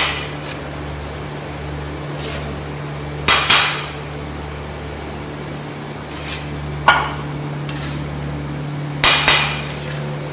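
Metal serving scoop knocking against a large metal pulao tray: a few sharp clanks a few seconds apart, some in quick pairs, over a steady low hum.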